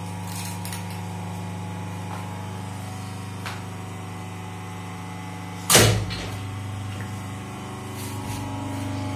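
Plastic injection moulding machine for gallon caps running with a steady electric hum. A single loud clunk from the machine comes a little past halfway, with a few light clicks earlier.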